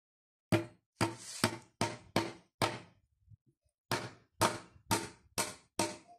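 A hammer drives a nail through a wooden board into a kithul palm log: six sharp blows, a short pause about three seconds in, then five more, about two a second.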